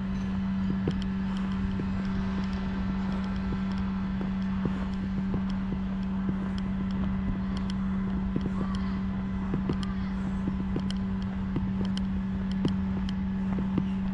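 A steady low hum on one unchanging pitch, with scattered light clicks and ticks over it.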